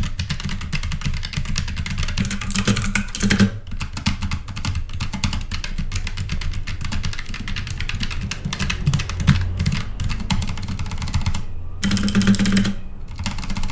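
Fast typing on a mechanical keyboard: a dense, continuous clatter of key clicks, with brief lulls about four seconds in and near the end.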